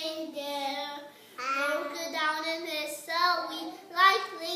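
A young child singing in a high voice, phrases of held notes broken by a short pause a little after a second in.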